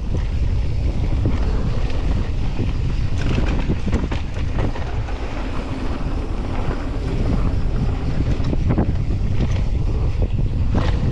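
Wind buffeting the microphone of a camera on a descending mountain biker, over the rumble of knobby tyres on a dirt and gravel trail. Short clicks and knocks run throughout as the bike rattles over bumps.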